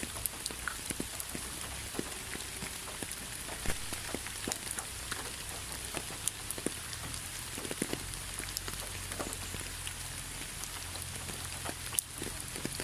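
Steady rain with a continuous hiss and many individual drops striking close by at irregular moments, over a faint low rumble.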